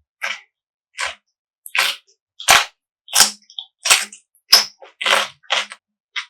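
Close-miked chewing of crisp, juicy food: a crunch with each bite of the jaw, about one every two-thirds of a second.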